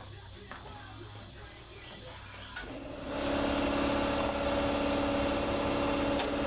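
A machine's motor starts up about three seconds in, just after a click, and runs on with a steady, even hum.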